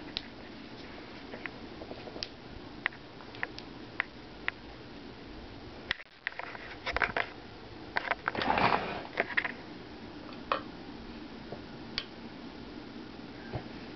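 Scattered light clicks and ticks, then a few seconds of rustling and scuffing handling noise around the middle, over a steady low room hum.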